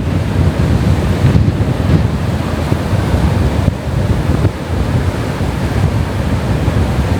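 Strong wind buffeting the microphone: a loud, steady rush of noise with a heavy low rumble that rises and falls with the gusts.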